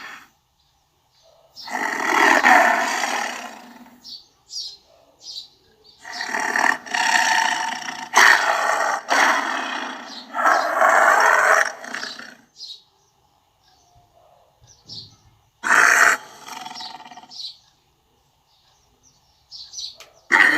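Tiger roaring: several loud calls, each one to two seconds long, with short pauses between them. Faint short high chirps sound in the gaps.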